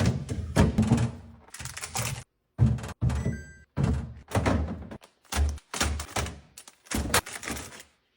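Repeated thunks and clatter of grocery items and containers being set down on refrigerator shelves, cut into short pieces with brief silent gaps between them.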